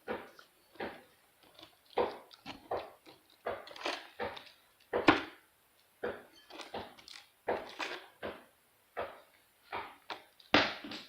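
Glue slime being stirred in a small bowl: a string of short, irregular squelches and knocks of the utensil against the bowl, about one or two a second. The slime is still sticky and not yet fully activated.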